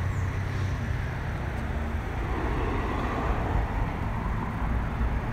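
Steady outdoor city background of road traffic, a continuous low rumble with no distinct events.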